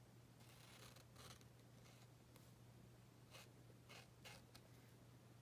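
Near silence with a steady low hum, broken by a few faint scratches of a Posca paint marker's tip stroking across the board: one about a second in and three close together near the end.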